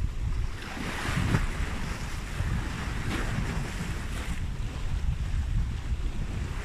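Wind buffeting the microphone over the wash of sea waves on the shore, with louder rushes about a second in and again around three to four seconds in.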